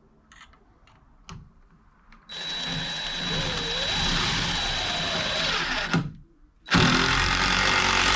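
Power drill driving a screw into a 2x4 wood block, run in two spells: a long one of about three and a half seconds with a steady high whine, then after a short pause a second of under two seconds.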